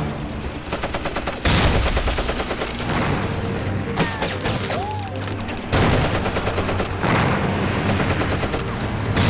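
Film battle sound effects: a rapid volley of gunfire, with two heavy explosions breaking in about a second and a half in and again near six seconds.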